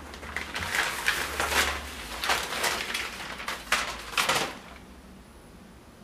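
Hands rubbing and pressing a Colltex climbing skin flat onto a ski, a run of scuffing, swishing strokes that stops about four and a half seconds in.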